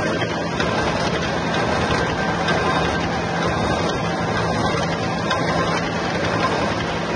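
Gear hobbing machine cutting the teeth of a large gear under a stream of cutting oil. The machine runs with a steady mechanical whirr and a constant low hum.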